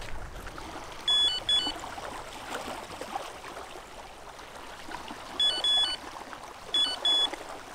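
Carp-rod electronic bite alarm sounding in three short bursts of high beeps, each a flat tone that steps down a little in pitch, the sign of line being pulled at the bait. Under it, a steady hiss of wind and lapping water.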